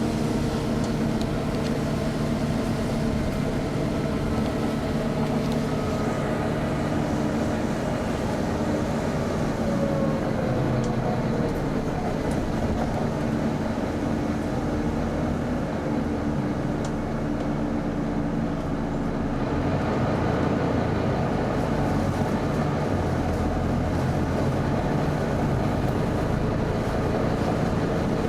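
Volvo B9TL double-decker bus standing with its diesel engine running and its engine cooling fan going loud, the fan that earns these buses the nickname 'hoover'. A steady drone made of several held pitches, its tone shifting slightly about two-thirds of the way through.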